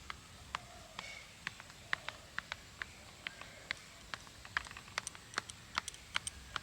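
Fork tines pricking pizza dough spread on a plate, each stab a short sharp click as the tines strike the plate. The clicks come about two a second at first and quicken to three or four a second in the second half.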